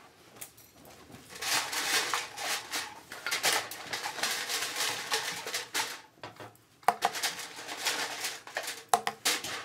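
Makeup brushes and product bottles clattering and rustling as they are rummaged through in a makeup trolley, with a couple of sharp clicks near the end.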